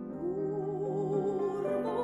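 Classical music: piano chords under an operatic singing voice that comes in just after the start and holds a note with vibrato.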